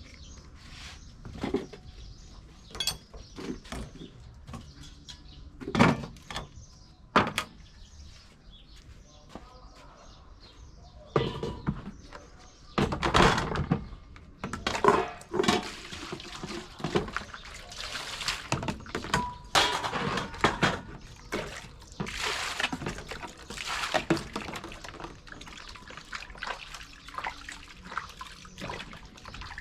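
Water splashing and pouring in a basin, with scattered knocks and clatter as green papaya is handled and washed by hand.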